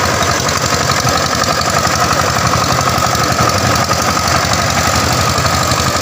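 Power tiller's single-cylinder diesel engine running steadily with a rapid, even chugging while it pulls through a flooded paddy field.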